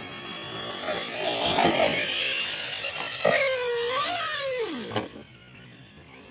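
Arrma Kraton brushless electric RC monster truck's motor and drivetrain whining as it speeds over dirt. While it is airborne the pitch rises, then falls steeply as the wheels spin down, and a sharp knock comes about five seconds in as it lands.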